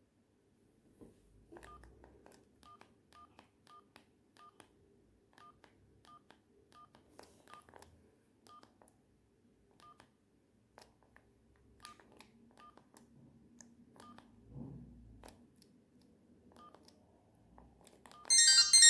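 Sony Ericsson J220i mobile phone keypad: a string of faint button clicks, irregularly spaced and most with a short high key beep, as the phone's buttons are pressed. Just before the end a loud ringtone melody starts.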